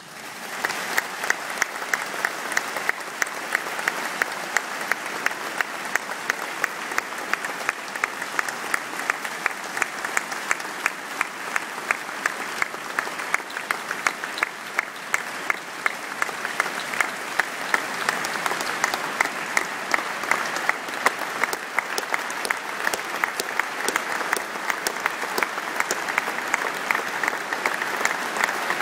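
Large crowd applauding in a big hall, starting suddenly and sustained throughout, swelling a little past the middle. One clapper close by stands out with sharp claps about three a second.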